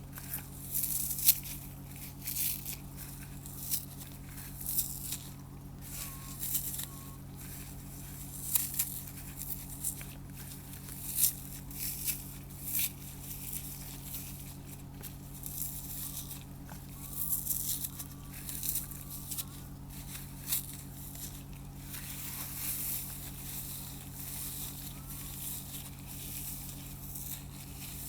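Dry floral foam crushed by fingers: irregular crunching and crumbling crackles, some sharper and louder than others, with short pauses between squeezes.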